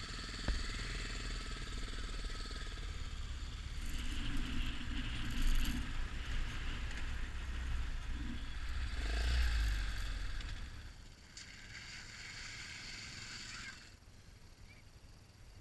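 Yamaha XT 600 motorcycle running, with wind rumbling on the microphone. The sound drops noticeably quieter about eleven seconds in.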